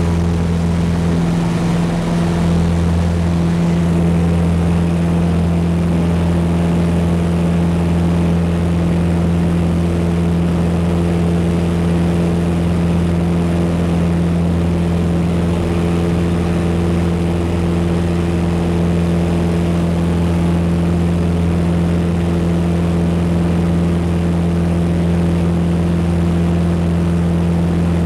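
Cessna 152's four-cylinder Lycoming engine and propeller running steadily at full takeoff power, heard from inside the cabin through the takeoff roll and climb-out.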